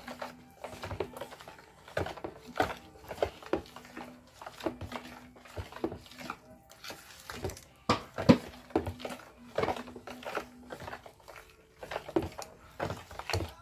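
Spoon knocking and scraping against a bowl while a milky drink mixture is stirred: irregular clicks and clinks, two or three a second, with one sharper knock about eight seconds in.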